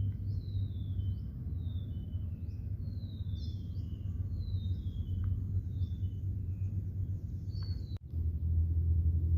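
Birds calling in a run of short, falling whistled notes, about two a second, over a steady low rumble. About eight seconds in the sound breaks off sharply and the low rumble comes back louder.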